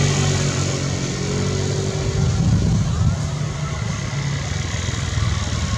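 Motor vehicle engine running: a steady hum that fades over the first two seconds, giving way to a low, uneven rumble.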